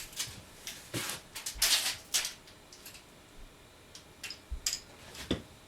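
Scattered light clicks and taps from objects being handled, with a brief scrape about one and a half seconds in and a few more clicks near the end.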